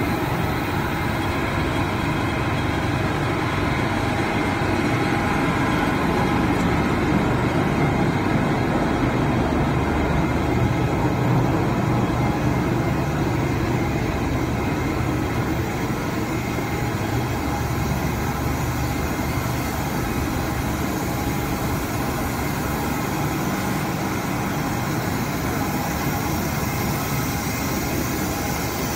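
Sandpaper-to-flannel laminating machine running: a steady, continuous mechanical hum of motors and rollers at an even level.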